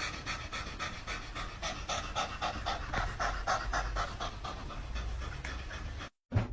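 Dog panting quickly in a steady, even rhythm of about four to five breaths a second, cut off near the end.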